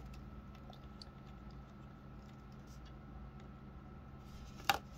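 Faint clicks and taps of hard plastic toy parts being handled, a plastic motorcycle figure and clear plastic stand pieces, with one sharper click near the end, over a low steady hum.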